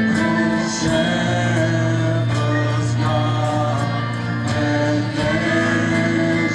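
Mixed choir of men and women singing through microphones with instrumental accompaniment, holding long sustained notes over a steady bass line.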